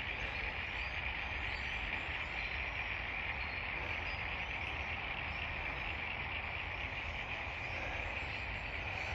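Insects chirring in a steady, unbroken high chorus, over the low rumble of distant road traffic.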